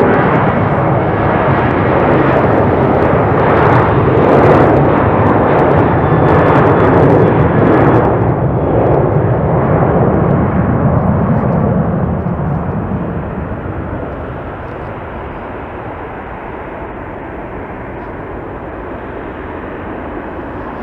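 Boeing 737-800's twin CFM56-7B turbofan engines at takeoff power through the takeoff roll and lift-off, loudest for about the first twelve seconds as the jet passes, then fading to a steadier, quieter noise as it climbs away.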